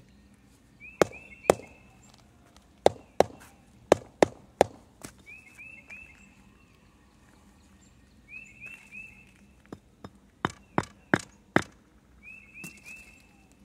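Rubber mallet tapping concrete pavers down into the sand bed to seat them: sharp knocks in two quick runs of several blows each, with a pause of a few seconds between.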